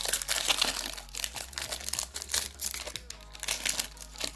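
Foil wrapper of a Lorcana booster pack crinkling and crackling as it is handled just after being torn open. The crackling is densest in the first couple of seconds and thins out toward the end.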